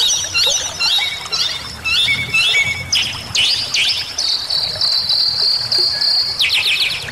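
Bali myna singing: a phrase of short chirps repeated about twice a second, then a held high whistle lasting about two seconds, then a rapid run of sweeping notes near the end. A low hiss of running water sits underneath.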